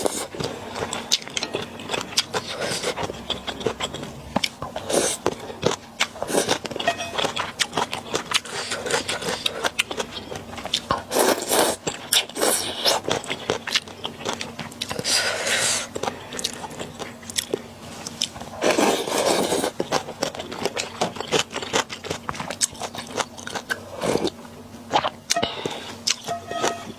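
Close-miked eating of luosifen snail rice noodles: crunchy chewing and biting with many sharp clicks, and a few longer noisy stretches of eating sound.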